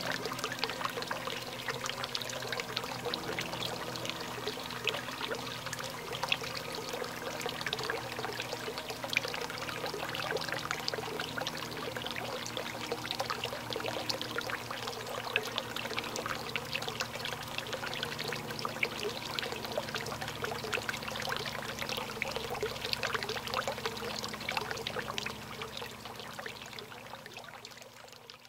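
Garden water fountain splashing and trickling steadily, with a low steady hum underneath; it fades out near the end.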